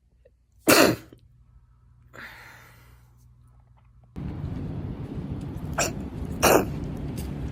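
A woman sneezing: one loud, sharp sneeze about a second in, followed by a softer breath. Then, over steady background noise, two more sneezes come in quick succession near the end, the second louder.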